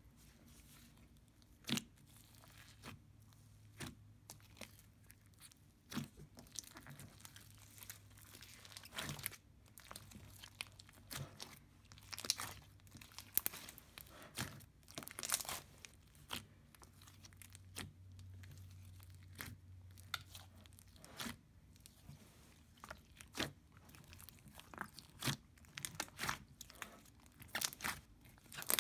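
Hands kneading and stretching a large mass of mixed slime, giving irregular sticky crackles and pops that come thicker near the end.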